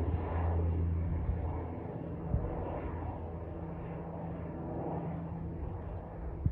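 Fixed-wing airplane taking off: steady engine noise with a low hum, a little louder in the first couple of seconds and then even.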